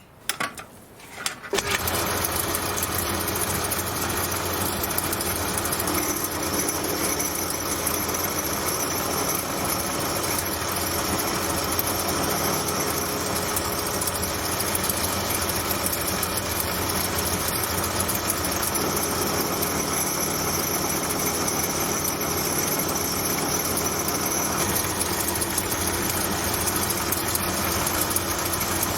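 A workshop machine tool's electric motor starts just under two seconds in and runs steadily.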